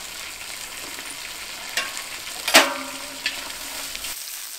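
Large pieces of lamb on the bone sizzle steadily in hot fat in a kazan over a strong fire. About halfway through, a metal utensil knocks sharply against the pot and it rings briefly, with lighter clicks of the utensil just before and after.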